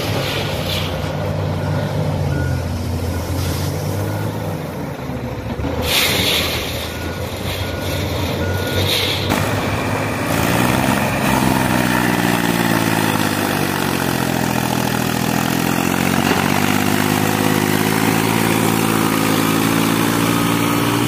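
A truck engine running, with a string of short beeps like a reversing alarm during the first half and brief hisses about six and nine seconds in. From about ten seconds on, the engine's pitch rises and falls repeatedly, as in revving.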